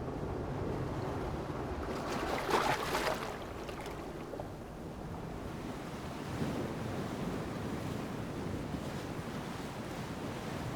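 Sea waves lapping against rocks, with a steady ocean roar behind them. One louder splash comes about two and a half seconds in.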